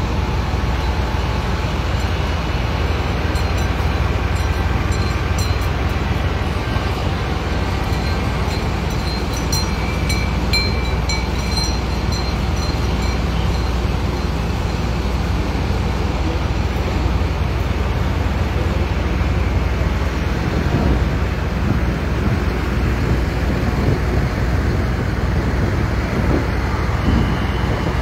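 Tractor engines running steadily in a column of farm tractors, a continuous low diesel rumble.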